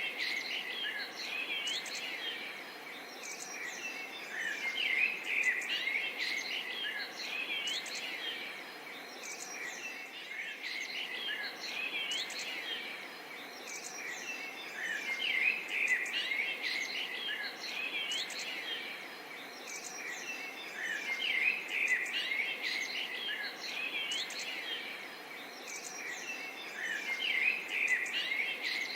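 Forest bird chorus: many birds chirping and calling over one another, over a steady background hiss. The chorus swells and eases every few seconds.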